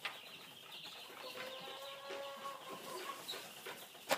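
Laying hens in a chicken coop: one hen gives a long drawn-out call starting a little over a second in, with fainter short calls around it.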